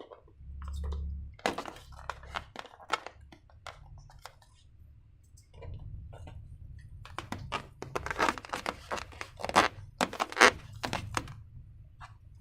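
Slime and balloon handling sounds: sticky crackles, crinkles and taps, densest from about seven seconds in, with a low rumble in the first second.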